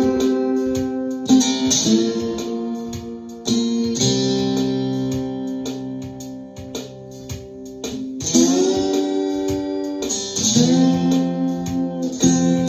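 Ovation Koa guitar in open C tuning playing sustained, ringing chords, several of them slid up into from below, over a steady drum rhythm.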